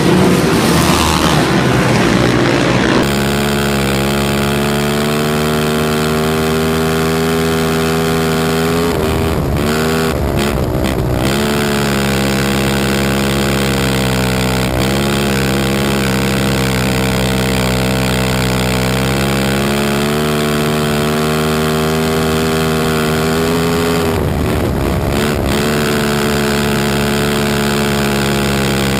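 Honda TRX450R's single-cylinder four-stroke engine at racing speed, picked up by a camera on its swingarm: a steady, high engine note that twice dips in pitch and climbs back as the rider eases off for the turns of the dirt oval and gets back on the throttle.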